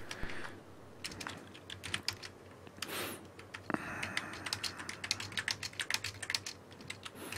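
Computer keyboard typing: a run of light key clicks, scattered at first and coming thick and fast in the second half.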